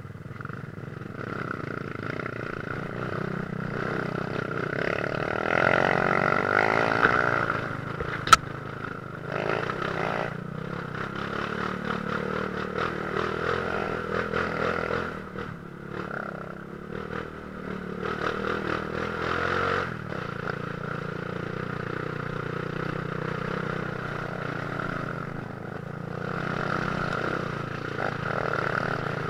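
Dirt bike engine running on a rough trail, the revs rising and falling with the throttle, with rattling and clatter from the bike over the bumps. One sharp knock about eight seconds in.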